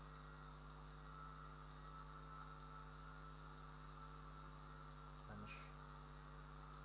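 Near silence with a steady low electrical hum on the recording, and a brief faint sound about five seconds in.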